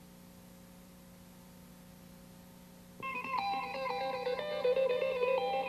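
Near silence with a low steady hum for about three seconds, then guitar music starts suddenly, playing quick runs of notes.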